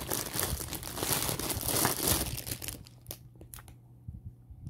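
Clear plastic packaging crinkling as it is handled and pulled about, dense for the first two and a half seconds, then dying down to a few light clicks.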